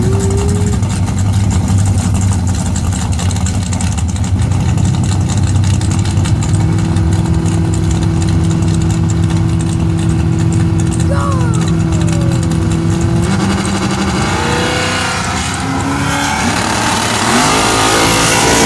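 Drag-racing car engines running at the starting line, held at a steady speed for several seconds. About two-thirds of the way through the sound changes, and near the end engine revs rise and fall.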